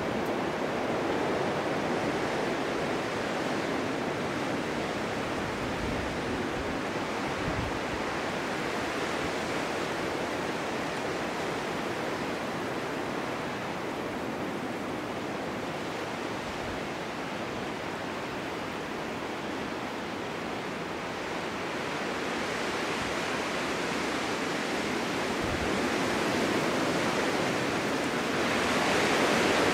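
Snowstorm wind blowing steadily, easing slightly around the middle, then swelling into a stronger gust near the end.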